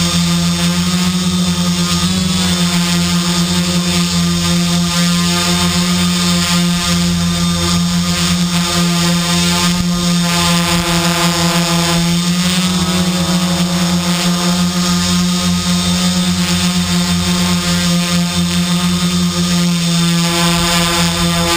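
Quadcopter's electric motors and propellers running steadily in flight, heard loud and close from the camera on board: a steady buzzing hum whose pitch shifts slightly a couple of times as the throttle changes.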